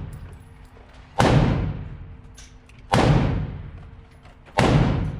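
Three handgun shots fired at an even pace, about one and three-quarter seconds apart. Each is a sharp crack that echoes away over about a second.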